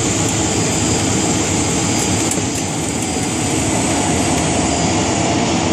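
Steady engine and propeller noise heard inside the cabin of a Susi Air turboprop as it rolls along the runway after landing, with a faint steady high whine.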